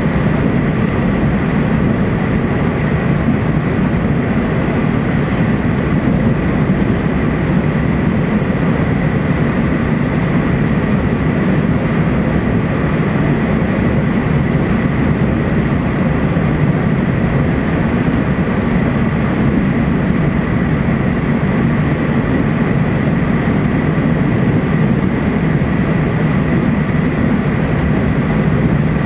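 Cabin running noise of a TEMU2000 Puyuma electric multiple unit travelling at speed: a steady, unbroken rumble with a thin high tone held throughout.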